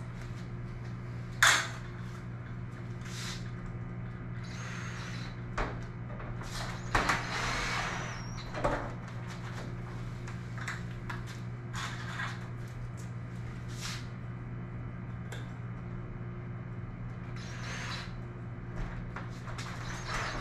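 Intermittent knocks and rattles against the aluminum garage door panels while holders are being fitted, over a steady low hum. There are a few longer scraping bursts in between.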